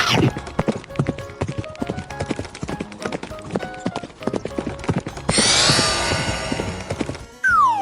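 Cartoon sound effect of galloping hooves, a fast clip-clop, over background music; about five seconds in a noisy rush takes over, and a sliding tone starts near the end.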